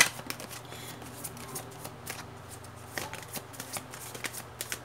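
A deck of tarot cards being shuffled by hand: a string of uneven flicks and slaps of the cards, the sharpest right at the start.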